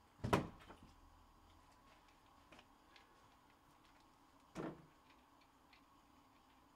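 Two sharp knocks about four seconds apart, the first the louder, with a few faint clicks between.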